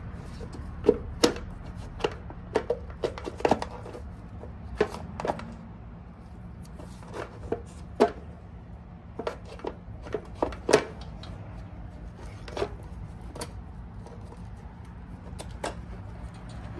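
Sharp, irregular clicks and knocks of hands handling wiring connectors and the plastic battery cover on a 1994 Yamaha Virago XV535, thinning out after about eleven seconds, over a steady low hum.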